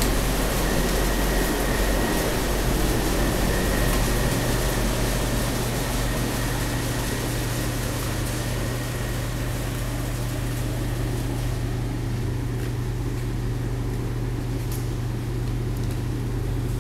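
Whipple-supercharged LSX 448 V8 idling steadily on the engine dyno, with a faint high whine that fades out in the first few seconds.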